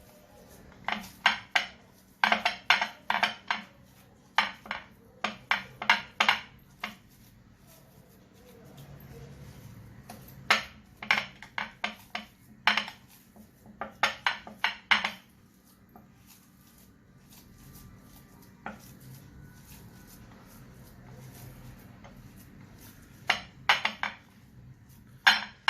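A utensil clinking against a mixing bowl in quick runs of strikes, with pauses between them, as spices are mixed into ground-meat kofta.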